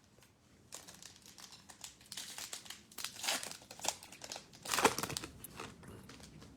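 A foil trading-card pack wrapper being torn open and crinkled by hand, in irregular crackles that peak loudest near the end.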